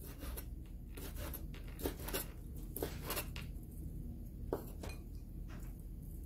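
Kitchen knife chopping raw shrimp on a cutting board: irregular taps of the blade against the board, roughly two a second, over a low steady room hum.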